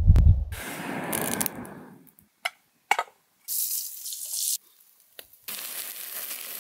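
Food sizzling over a campfire in two hissing bursts: a small pan of herbs on the fire, then skewered lamb held over the flames. A heavy thump opens it, and a few short sharp clicks fall in between.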